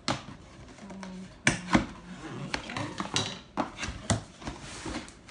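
Cardboard box being opened by hand: flaps and a cardboard insert pulled up, with rustling, scraping and several sharp knocks of cardboard, the loudest about one and a half and two seconds in.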